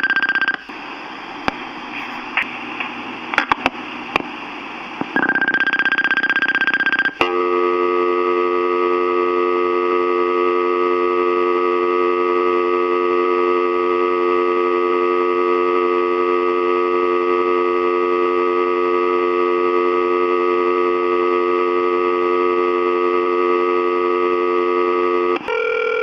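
Answering-machine message tape playing back: a high beep ends just after the start, then a few seconds of tape hiss with faint clicks, and a second high beep. A steady telephone dial tone follows for about eighteen seconds, recorded onto the tape from the phone line, switching to a different short tone near the end.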